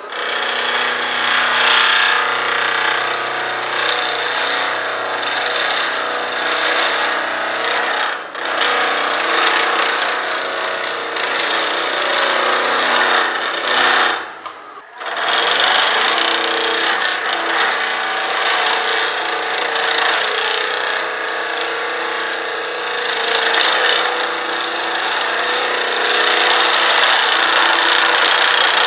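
Wood lathe running, with a gouge cutting a spinning blank of stabilized elm burl and cast resin: a steady motor hum under a continuous scraping hiss of the cut. The hard blank is chipping out under the tool. The cutting noise drops out briefly about eight seconds in and for about a second halfway through as the tool comes off the work.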